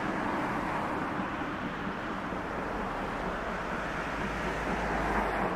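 C11 steam locomotive approaching, its working steam exhaust heard as a steady rushing noise, with a low rumble building near the end as it comes closer.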